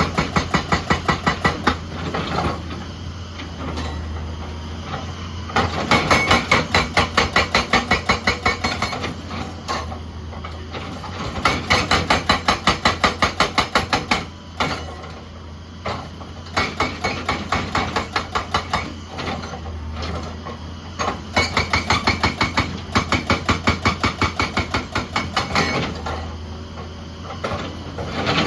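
Excavator-mounted hydraulic rock breaker hammering on rock in runs of rapid blows, about six a second. Each run lasts a few seconds, with short pauses between, over the excavator's steady engine.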